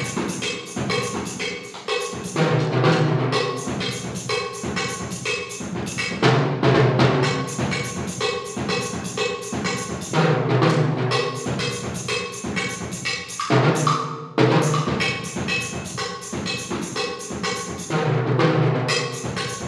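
Solo multi-percussion playing: a set of small toms, a large drum and cymbal struck with sticks in a fast, dense, driving rhythm, with a brief drop in loudness about fourteen seconds in.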